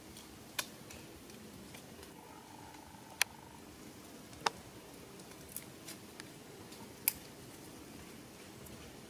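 Low steady background noise broken by four sharp, brief clicks spread a couple of seconds apart.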